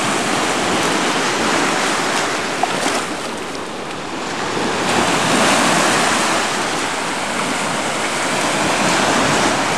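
Small waves breaking and washing up a sandy lake shore, a steady rush of surf that swells and eases, loudest about halfway through.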